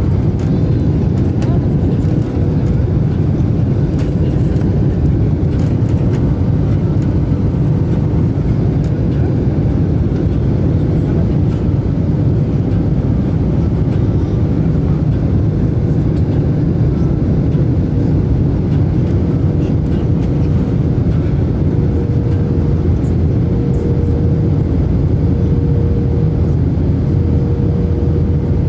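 Steady roar of an airliner cabin in flight, engine and airflow noise, with a faint steady hum running through it.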